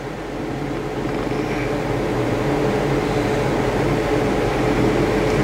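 Steady machine-like background hum with a constant tone, growing a little louder over the first couple of seconds and then holding level.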